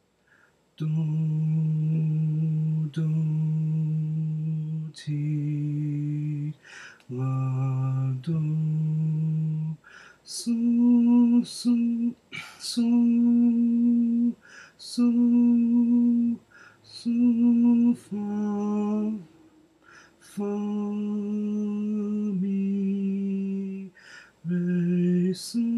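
A man's voice sight-singing a melody in solfège syllables, one held note after another, each lasting about a second or two, with short breaks and crisp 's' and 't' consonants between notes. The pitch steps up and down from note to note.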